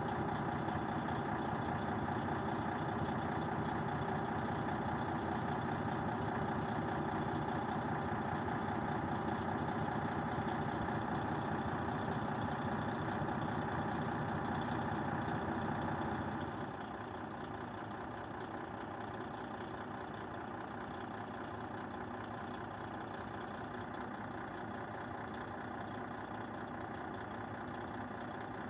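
Freightliner Cascadia's heavy-duty diesel engine idling steadily, heard up close in the open engine bay. It becomes somewhat quieter a little past halfway.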